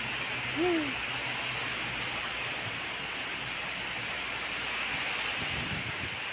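Heavy rain pouring down in a steady hiss. About half a second in there is a short hum that rises then falls.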